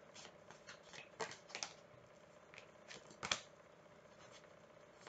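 Tarot cards being handled: a few soft, scattered taps and slides of the cards against each other, the sharpest about three seconds in.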